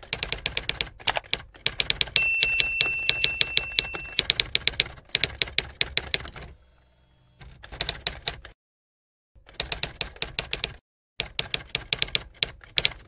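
Typewriter sound effect: runs of rapid, sharp key clacks broken by a few short pauses. About two seconds in, a bell dings and rings on for about two seconds over the clacking.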